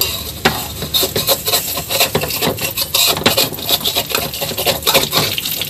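Small sea fish frying in hot oil in an aluminium wok: dense sizzling and crackling spatter. A metal spatula scrapes and clicks against the pan among the fish.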